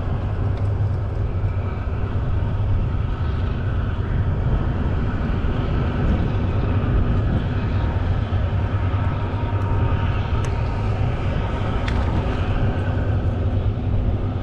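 Steady low engine drone of tug barges' diesel engines passing nearby.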